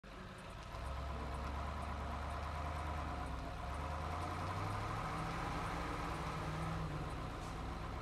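Truck engine sound effect running steadily, fading in over the first second. Its low tone steps up a little in pitch about halfway through.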